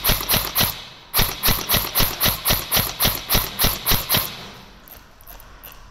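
Quick running footsteps, about four a second. They break off briefly about a second in, go on for about three seconds, then fade out.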